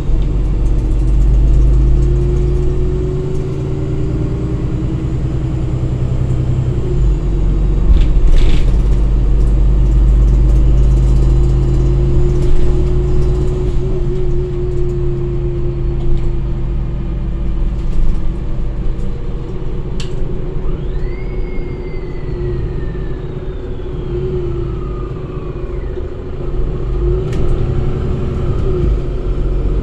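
Inside a Solaris Urbino 8.9 LE city bus under way: its Cummins ISB6.7 inline-six diesel rumbles low while the bus pulls along, with a wavering whine over it and an occasional rattle from the cabin. About two-thirds of the way through, a high tone slides slowly downward for several seconds.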